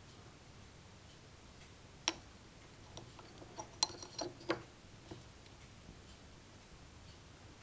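A small ornamental Medusa-head medallion clicking and tapping against a carved wooden cabinet as it is handled and pressed into place: one sharp click, then a quick irregular run of clicks.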